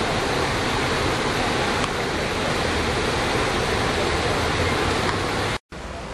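Creek rapids rushing, a steady dense wash of whitewater. Near the end it cuts off abruptly for a split second and comes back quieter, as gentler flowing water.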